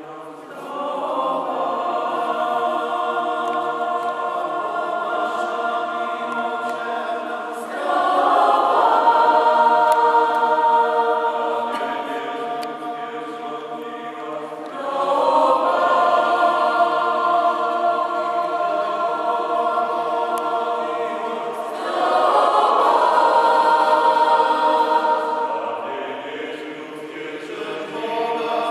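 Mixed choir of women's and men's voices singing a sacred choral song a cappella, in long held phrases that swell louder about eight, fifteen and twenty-two seconds in and ease off in between.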